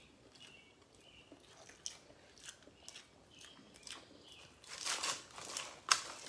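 A person chewing and biting food close to the microphone, with scattered mouth clicks and wet smacks and a louder crunchy stretch about five seconds in.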